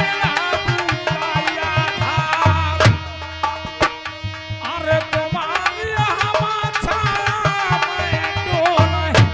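Live Indian folk dance music: a dholak drum beats a quick rhythm under a wavering melody instrument. The drumming closes a phrase with a deep boom and a sharp stroke about three seconds in and again near the end.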